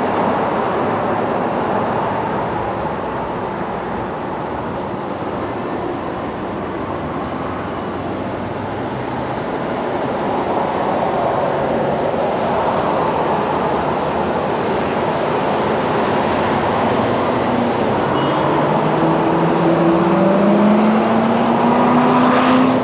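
Steady road traffic noise from passing cars. Near the end one vehicle's engine rises in pitch as it speeds up.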